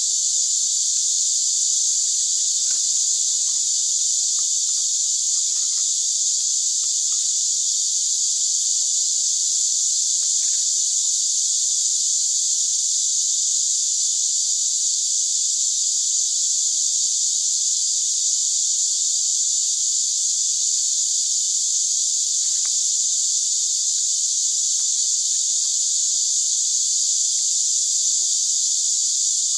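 Steady, high-pitched drone of an insect chorus, unbroken at an even level, with a few faint light ticks as bamboo strips are laid on the ground.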